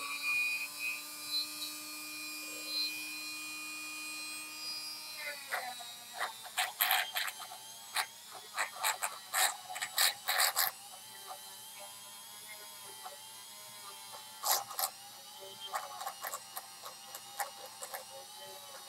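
Handheld rotary tool running at a steady pitch, then winding down and stopping about five seconds in. A run of sharp clicks and taps follows, with a few more near the end.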